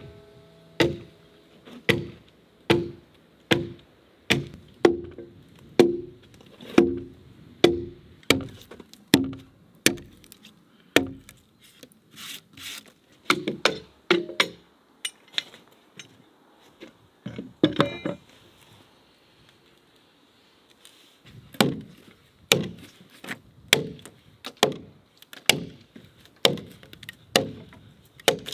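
Axe chopping into a peeled log, a steady run of sharp wood strikes about two a second. After a lull with a few scattered knocks and a short pause, the chopping starts again for the last several seconds.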